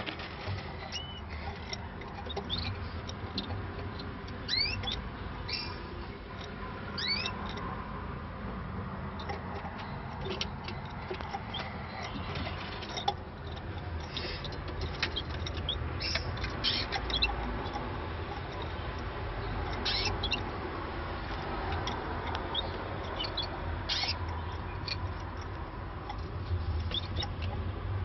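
Canaries giving short, high chirps and rising squeaks, scattered irregularly over a low background hum.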